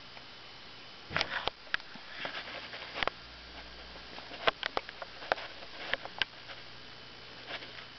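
Pet hedgehog sniffing in a string of short, irregular sniffs, starting about a second in, as it scents a worm dropped beside it.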